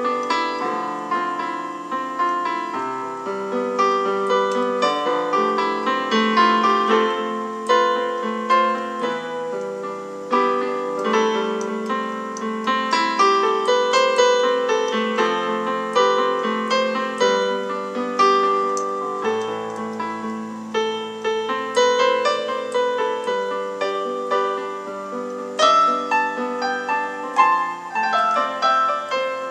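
Electronic keyboard played solo, an improvisation on four-part chords: sustained chords underneath with a free melodic line of many notes above.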